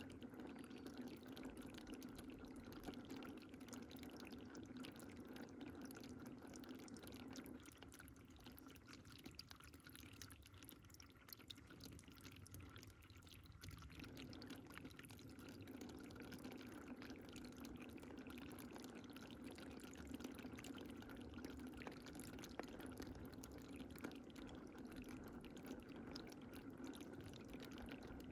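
Faint, steady pouring and trickling of running water. From about 8 to 14 seconds in, the fuller, lower part of the sound weakens, then comes back.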